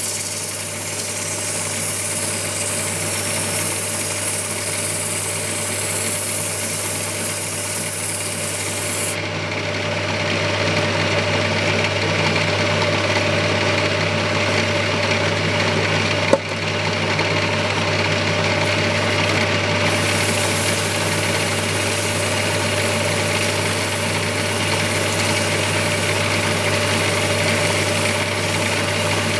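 Electric motor of a small lathe running with a steady hum as it spins a bird-cherry (черёмуха) bowl. Sandpaper pressed against the turning wood gives a rubbing hiss; the hiss loses its high edge when the paper is lifted off, from about a third of the way in to two thirds, then comes back. One sharp click about halfway.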